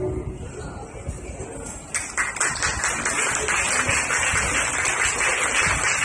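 The last held chord of a four-voice a cappella group dies away, and about two seconds in an audience breaks into applause that continues.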